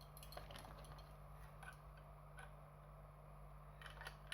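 Near silence over a low steady hum, with a few faint clicks and taps of a small plastic transforming toy being handled, the most of them near the end.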